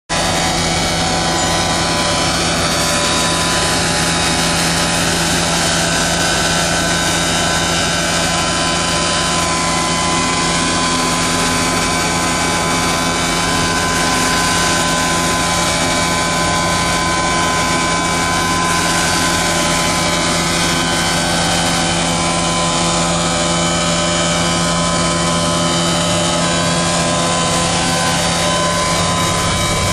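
Steady drone and whine of a Caterpillar track tractor pulling a Bourgault 3225 air cart and fertilizer applicator, running without a break.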